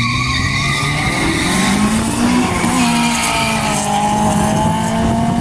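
A drag-strip launch: a car's engine is held at high revs and pulls away hard from the start line. The engine note climbs, breaks about two and a half seconds in at a gear change, then carries on as the car runs away down the strip.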